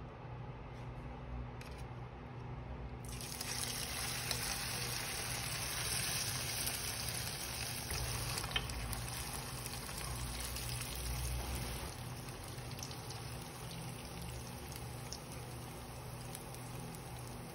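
Banana-blossom patties deep-frying in hot oil, a steady dense sizzle that starts suddenly about three seconds in as the first spoonful of mixture goes into the oil. A low steady hum runs underneath.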